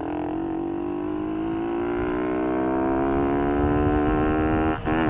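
Small motorcycle engine pulling under acceleration, its note rising slowly and steadily. Near the end the engine note breaks off briefly and comes back at a lower pitch as the rider shifts up a gear.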